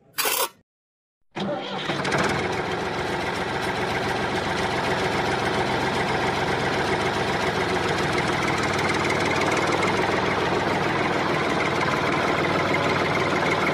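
Tractor engine starting about a second in, then running steadily at an even pitch. A short, sharp sound comes just before it starts.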